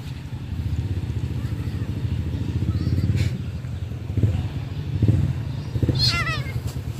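A kitten gives a high-pitched distress cry about six seconds in, falling in quick steps, while a black dog has it in its mouth. A steady low rumble, like an engine running, lies underneath throughout.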